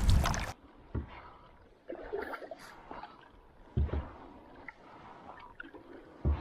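Wind rushing on the microphone cuts off about half a second in. After that comes the sound of a canoe being paddled: water splashing and gurgling off the paddle, with a low knock three times, a few seconds apart.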